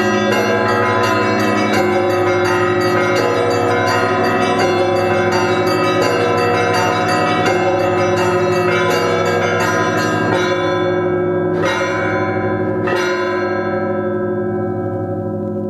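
Russian Orthodox monastery bells ringing: a quick run of strikes on the smaller bells over the steady hum of the big bells. The run stops about ten seconds in, two single strokes follow, and the bells then ring on and fade.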